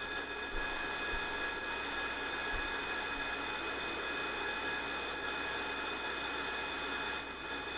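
Servos of a powered-up E-flite Carbon-Z Cub RC plane humming and whining steadily at rest, a constant high whine over a hiss. The owner thinks the noise might have something to do with the AS3X stabiliser, with the radio not yet properly set up.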